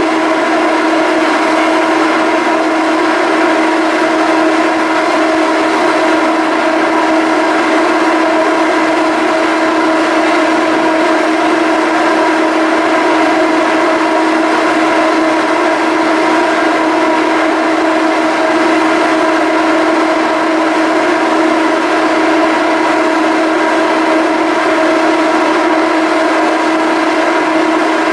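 The machinery of a BC Ferries Salish-class ferry running with a loud, steady hum: one strong low tone with several higher tones above it, unchanging throughout.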